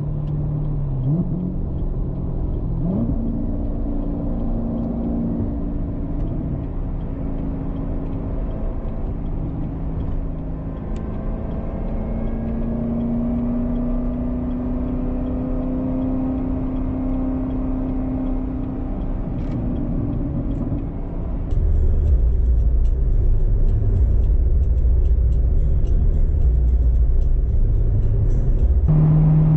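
2019 Corvette ZR1's supercharged 6.2-litre V8 running on the road, its note rising and falling with the revs, with short rises in pitch near the start. About two-thirds of the way through, the sound changes abruptly to a louder, deeper low rumble.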